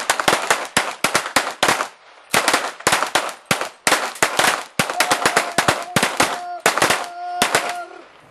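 Several shooters firing large-calibre pistols at the same time: a rapid, irregular volley of overlapping sharp shots with a short lull about two seconds in. The firing stops shortly before the end. A steady tone runs beneath the last few seconds of shots.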